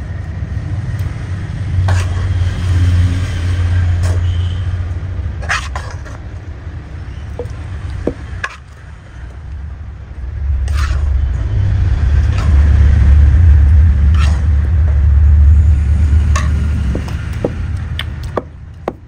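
Wooden pestle pounding wet gongura chutney in a stone mortar: a run of dull, low thuds, heaviest in two long stretches, with occasional sharper knocks of wood on stone.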